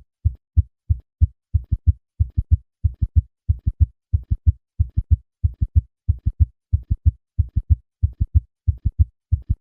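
Heart sounds of a patient with a summation gallop: a quick, steady galloping rhythm of low thuds, three to each beat. The first and second heart sounds are followed by a loud extra diastolic sound, where a third and a fourth heart sound merge at a heart rate above 90 beats a minute.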